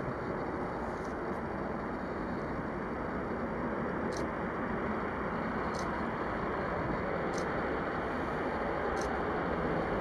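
Jet rumble from a Rockwell B-1B Lancer's four General Electric F101 turbofans as the bomber moves along the runway. The steady rumble grows slowly louder as it comes closer.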